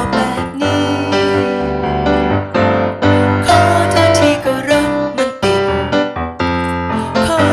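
Song accompaniment played on a Roland RD-700-series stage piano in a piano voice, chords and melody notes struck continuously.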